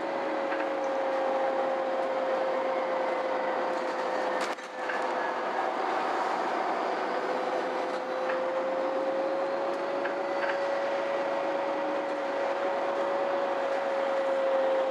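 Ride inside a MAN Lion's City G articulated city bus: steady running and road noise with a constant whine that drifts slightly in pitch. There is a short knock with a brief dip in the sound about four and a half seconds in.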